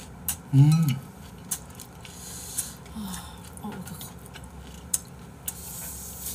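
A meal being eaten: scattered clicks and clinks of utensils and dishes. About half a second in comes a loud, short hummed voice sound that rises and falls, like a pleased "mm". Two faint brief murmurs follow around three seconds in.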